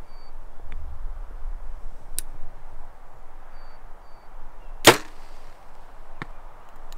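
Compound bow shot: a single sharp crack as the string is released about five seconds in, followed a little over a second later by a faint tick. A low wind rumble runs underneath.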